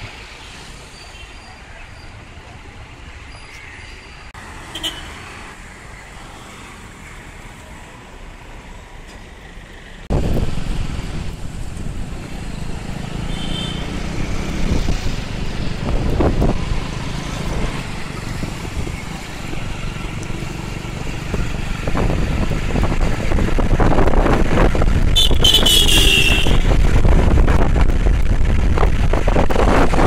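Town road traffic: vehicles idling and passing around a bus stand. About ten seconds in it changes abruptly to louder, rumbling traffic noise with wind on the microphone, and a short high-pitched squeal near the end.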